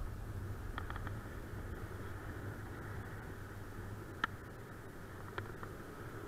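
Wind rushing over the camera microphone in flight under a paraglider: a steady low rumble with a higher hiss. A few faint clicks come about a second in, and a sharper single click comes a little past four seconds.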